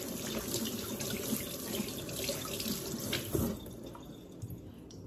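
Kitchen sink faucet running as hands are washed under it; the water sound drops away about three and a half seconds in.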